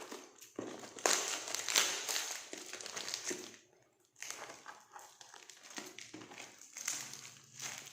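Parcel packaging crinkling and rustling in irregular bursts as it is pulled and worked open by hand, without a cutter, with a brief pause a little before halfway.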